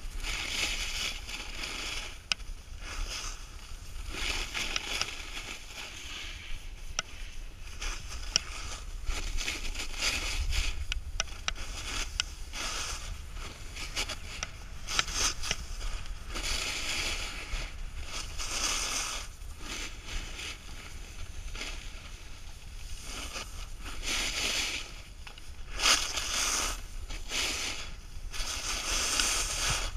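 Snowboard scraping and hissing over packed snow through a run of turns. Each turn brings a swell of hiss lasting about a second, over a steady low wind rumble.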